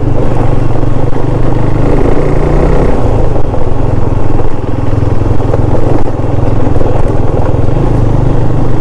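KTM Duke 390's single-cylinder engine running steadily under way, its note dipping slightly about three seconds in.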